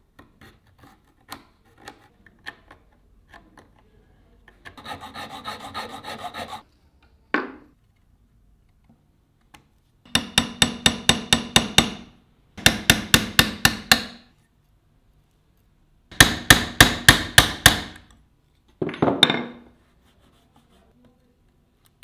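Drill bit boring into the steel bolster of an old folding pocket knife to drill out its rivet pin: three bursts of rapid, evenly spaced chattering clicks, about seven a second. Before them come light taps and a stretch of scraping on the metal.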